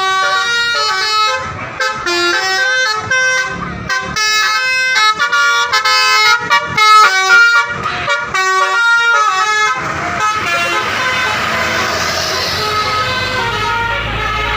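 Bus's Basuri telolet horn playing a quick melody of jumping notes for about ten seconds. After that a steady rushing noise with a low rumble takes over.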